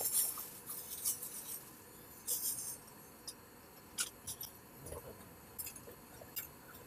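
Quiet handling noise: rustling of a plastic bag with small scattered clicks and scrapes, a short rustle about two and a half seconds in.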